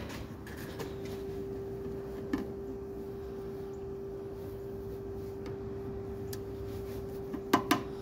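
A steady hum at one pitch, with a light click about two seconds in and a few clicks near the end, like parts being handled.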